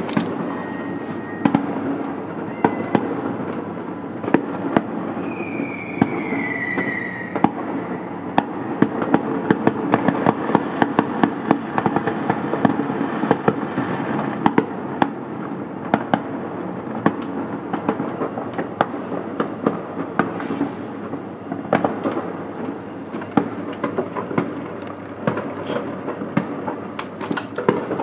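Many fireworks and firecrackers going off at once, near and far: a dense, irregular crackle of bangs and pops over a continuous din, with a short falling whistle about six seconds in.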